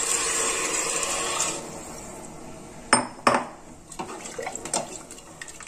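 Water poured from a glass jug into an aluminium pressure cooker onto roasted broken wheat and vegetables, a rushing pour that stops about a second and a half in. Then come two sharp knocks against the pot and a wooden spatula stirring and scraping in it.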